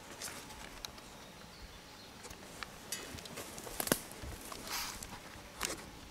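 Overheated Gulf Wax (paraffin) burning in a pan on a Primus gas canister stove, the wax having passed its flash point and caught fire: a faint steady rush with scattered crackles and sharp pops, the sharpest about four seconds in.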